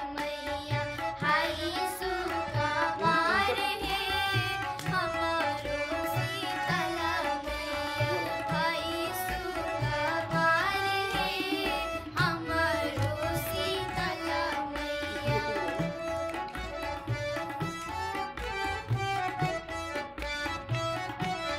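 Bhojpuri devotional song (devi geet) played live: a dholak hand drum beats a steady rhythm under a gliding sung melody.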